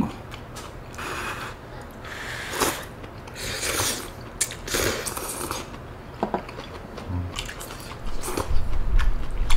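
Close-up eating sounds from a bowl of malatang: chewing, with short noisy bursts and many sharp clicks scattered throughout.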